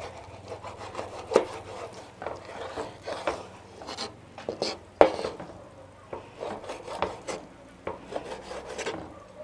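Kitchen knife cutting a raw fish fillet into pieces on a wooden cutting board: scraping, sawing strokes through the flesh and irregular knocks of the blade on the board, the loudest about five seconds in.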